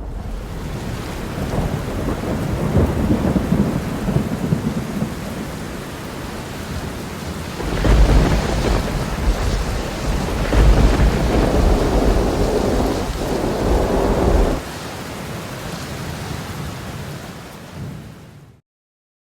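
Rain falling with rolling thunder; a louder, deep rumble of thunder swells about eight seconds in and drops away after about six seconds, leaving the rain, which cuts off suddenly near the end.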